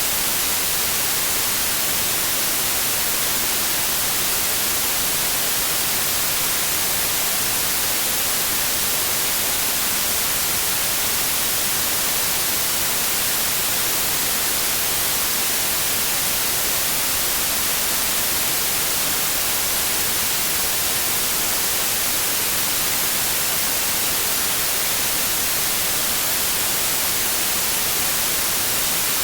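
Synthetic white noise: a steady, even hiss with no tones, pulses or changes.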